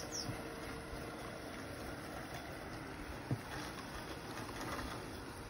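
Two robotic lawn mowers, a Husqvarna Automower 315 and a Kress RTK mower, running over grass: a faint steady hum under an even outdoor hiss. A short thump comes about three seconds in, and a few brief high chirps at the very start.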